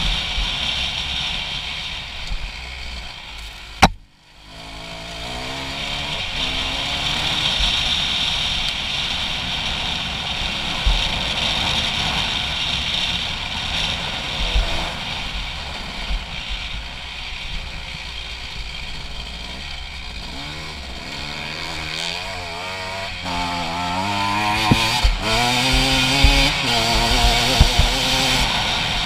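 Honda CRF250 dirt bike's single-cylinder four-stroke engine with an HGS aftermarket exhaust, running under way and revving up and down with the throttle, with wind and gravel noise on the helmet camera. A sharp click about four seconds in, followed by a brief drop in sound.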